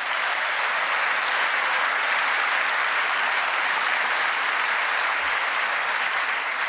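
Audience of members of Congress applauding steadily in a large hall, a sustained wash of clapping that fades near the end.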